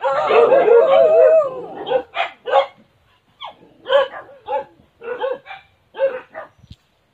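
A dog gives a long, wavering cry for about two seconds, then barks about ten times in short calls, some in quick pairs, before falling quiet near the end.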